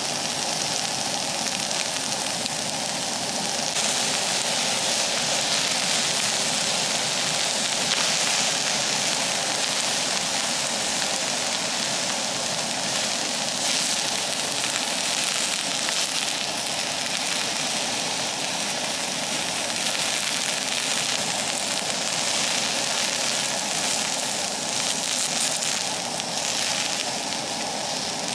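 Vegetable scraps sizzling and crackling in oil on a hot iron plate over a single gas burner, with a steady rush beneath; the sizzle grows louder about four seconds in. The scraps are being fried to take the iron smell out of the freshly seasoned plate.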